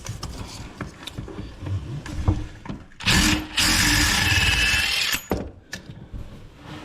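A power tool runs in one loud burst of about two seconds, about three seconds in, spinning the nut off a toilet's floor bolt. Light clicks and handling knocks come before and after it.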